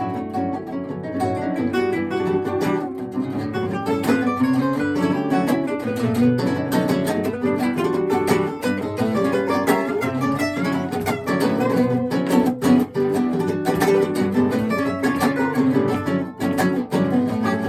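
Acoustic guitars played together, an instrumental trio on Spanish guitars, with plucked melody lines over strummed chords.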